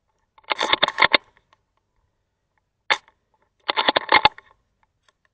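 Airsoft gunfire: a single sharp crack followed by a rapid, even string of clicks lasting under a second, heard twice, about three seconds apart.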